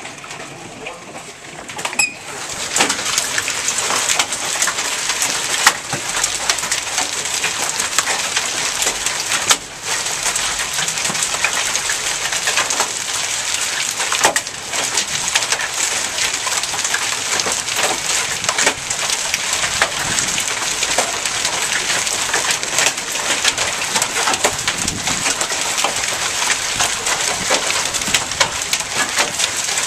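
Small hail mixed with rain pelting down on grass, concrete and the house: a dense, steady clatter of countless small impacts that grows much louder about two seconds in.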